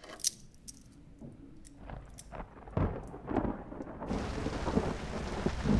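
A few small clicks and taps as a wooden wall clock's case and metal part are handled, then a low rumble of thunder builds, and about four seconds in a steady hiss of heavy rain sets in abruptly.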